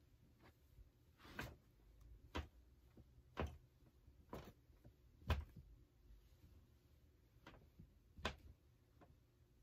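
Soft thuds of bare feet stomping on large stuffed Squishables plush toys, about one a second, the loudest about halfway through, followed by a pause of about two seconds before a few more.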